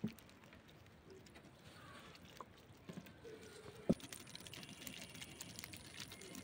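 Faint handling sounds of a small bamboo fish trap on a wooden boat: light scattered clicks and knocks, with one sharp knock about four seconds in.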